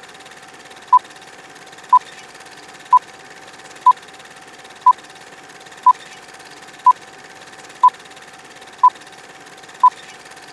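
Short, high electronic beeps, one each second, eleven in all, over a faint steady hiss and hum, like a countdown timer ticking down.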